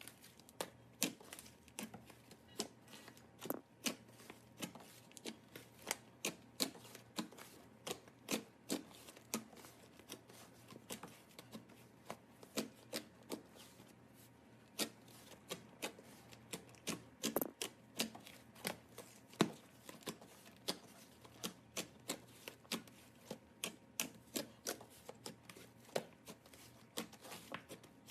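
Slime being squeezed and pressed by hand, giving a steady run of sharp clicks and pops, about two a second.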